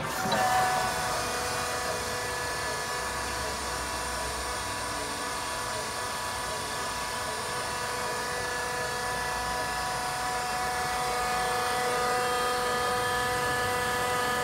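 LeBlond Regal engine lathe running under power: the spindle and headstock gearing turn with a steady whine of several even tones. It starts suddenly with a brief surge as the spindle lever is thrown, and cuts off abruptly right at the end as the lever is thrown back.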